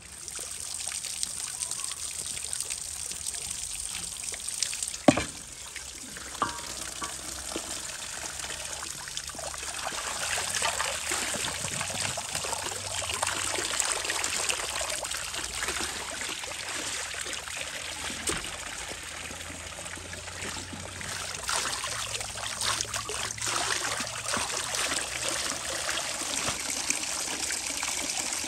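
Water trickling and splashing: rain falling on leaves, and water poured over a plucked goose in a large enamel basin, with a single sharp knock about five seconds in.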